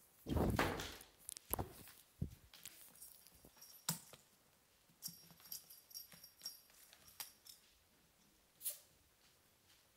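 Kittens close to the microphone. A tabby kitten bumps and brushes against the camera in the first second, making a loud rustling thump. After that come scattered light taps and scratches, and a faint high metallic jingling a few times in the second half.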